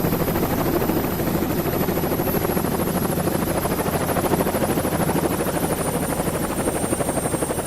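Helicopter running steadily with fast, even rotor-blade chop, and a thin high whine that slowly drops in pitch.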